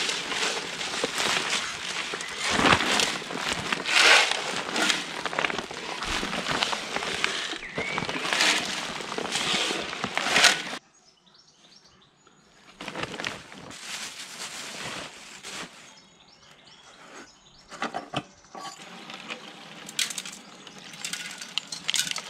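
Gravel and acetone being shaken around inside a rusty steel motorcycle fuel tank to scour out sludge: a dense, loud rattling and sloshing for about ten seconds that stops abruptly. After that it is much quieter, with a few knocks and faint bird chirps.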